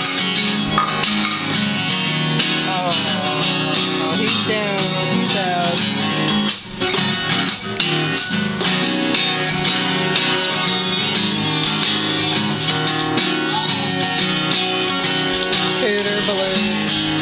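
Guitar-led music with strummed acoustic guitar and a steady beat, briefly dropping in level about six and a half seconds in.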